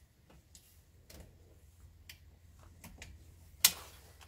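Small retaining clip snapping over a coolant hose bracket with one sharp click about three and a half seconds in, after a few faint ticks and taps as it is worked into place.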